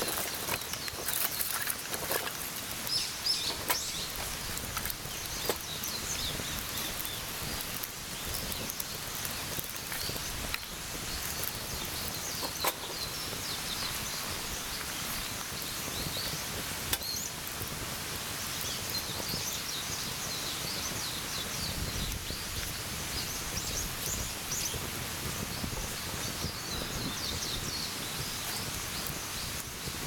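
Split firewood burning in a small fire pit, crackling with occasional sharp pops. Birds chirp in the background.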